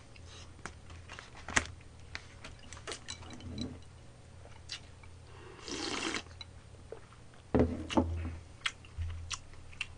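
Close-miked eating: chewing and mouth sounds with scattered clicks of wooden chopsticks against plastic lunch-box trays, a short slurp of liquid about six seconds in, and a few louder smacks near the end.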